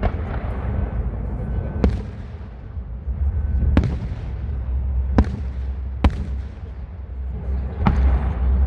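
Aerial firework shells bursting: six sharp bangs one to two seconds apart, with a low rolling rumble of echo between them.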